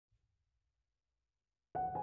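Silence, then soft piano music begins near the end, a few sustained notes struck in quick succession.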